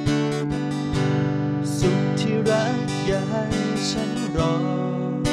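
Acoustic guitar strummed in steady chords, picked up through a Momix Joyo portable audio interface.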